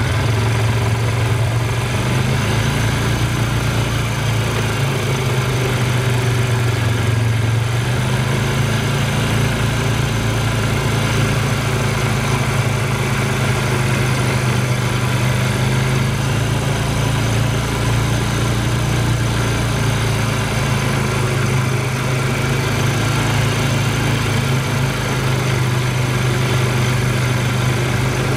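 ATV engine running at a steady, even pitch, heard from on board the moving quad.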